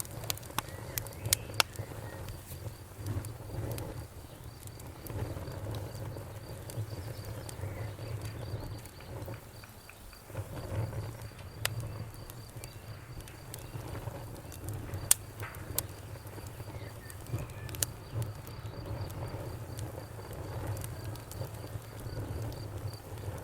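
Campfire burning, with irregular sharp crackles and pops over a steady low rumble of the flames.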